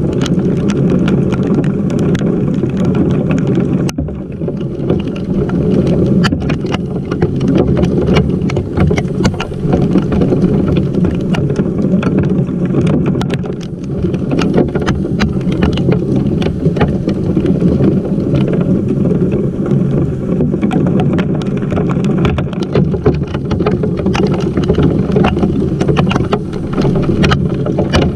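Heavy rain of a hailstorm beating on and around a GoPro: a loud, steady low rumble with many sharp ticks of drops striking close to the microphone.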